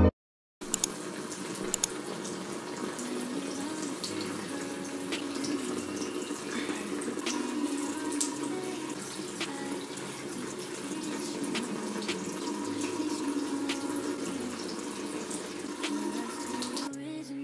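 Bathroom sink faucet running steadily, with small scattered clicks over the water.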